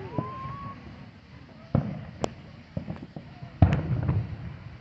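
Fireworks: aerial shells bursting overhead. There are two heavy booms with a rumbling tail, about two seconds in and near the end, and a sharp crack between them.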